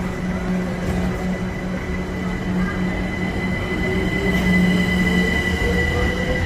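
Train moving through a station, with a low rumble, a thin steady high-pitched squeal and a whine that climbs in pitch from a little past halfway, growing slowly louder.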